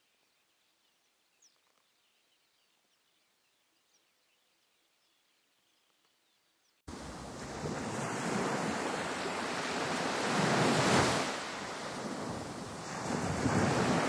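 Near silence for about seven seconds, then sea surf on a beach starts suddenly: waves breaking and washing in, swelling loudest about four seconds later and easing a little.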